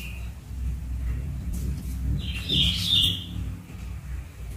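Clear plastic sticker sheets rustling and clicking as they are handled, over a steady low hum. A short run of bird chirps comes about halfway through.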